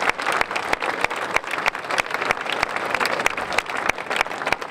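Crowd applauding, with many overlapping hand claps.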